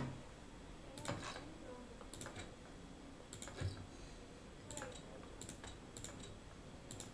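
About ten faint, irregular clicks as betting chips are placed in an online live blackjack game, from mouse clicks or the game's chip-placing sound.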